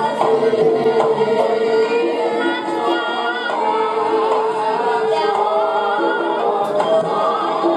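Javanese gamelan music with singing accompanying a Gambyong dance: held metallic notes and short repeated struck notes under wavering sung vocal lines, playing steadily.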